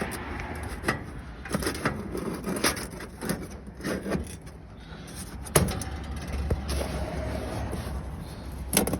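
Metal grate pieces clanking and scraping as they are worked down into a grill's steel firebox, a snug fit. Irregular knocks throughout, the loudest a little past halfway.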